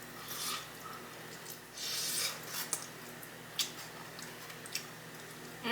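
Close-miked eating sounds from chicken wings being chewed: short wet chewing bursts, the longest about two seconds in, with a few sharp mouth clicks later on.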